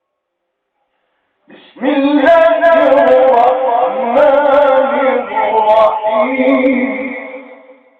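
A man's voice reciting the Quran in melodic chant, one long ornamented phrase that starts after a pause of about a second and a half and trails off at the end.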